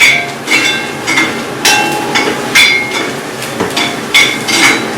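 A metal spatula knocking and scraping against an iron kadai while the curry is stirred: about nine sharp clanks at an uneven pace, each ringing briefly.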